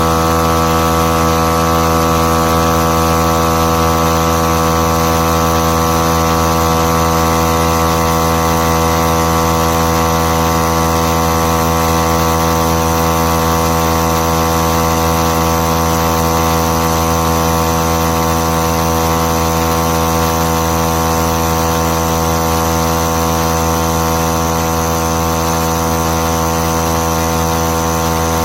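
VIAIR 88P 12 V portable tire inflator's electric compressor running steadily, a loud, even motor-and-piston drone that holds one pitch.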